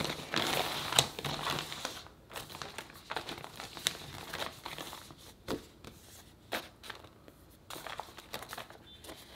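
Plastic meal-kit packaging crinkling and rustling as hands open the outer bag and pull out a clear plastic tray. Dense crinkling for about the first two seconds, then scattered sharp crackles.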